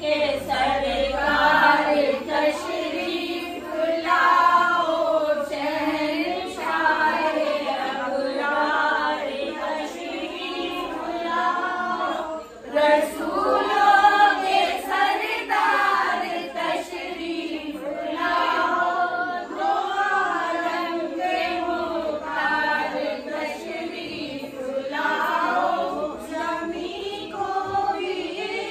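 A group of women singing devotional verses together without instruments, in continuous phrases of one melody line.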